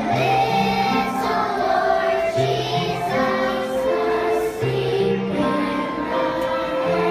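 A choir of young children singing a song together over an instrumental accompaniment with held notes and a stepping bass line.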